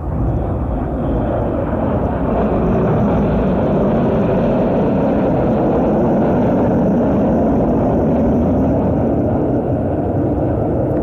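Red Arrows BAE Hawk T1 jets flying past, their Adour turbofan engines making a loud, continuous noise, with a pitch that falls over the first few seconds as the aircraft pass.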